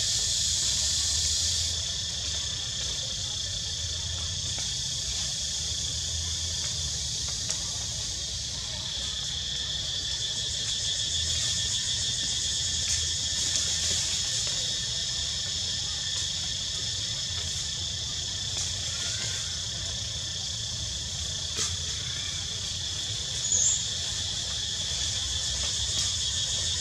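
Steady high-pitched insect chorus droning without a break, with a low rumble underneath and one short high chirp near the end.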